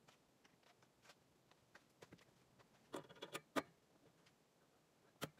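Sparse small metallic clicks of chrome sockets being handled and pressed onto socket-rail clips in a metal tool box, with a louder cluster of ringing clinks about three seconds in and one more click near the end.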